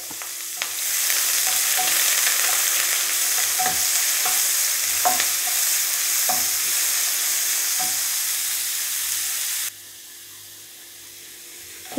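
Chopped onions, dried red chillies and curry leaves sizzling in hot coconut oil in a nonstick kadai, stirred with a wooden spatula that knocks and scrapes against the pan now and then. The sizzle drops suddenly to a much quieter hiss near the end.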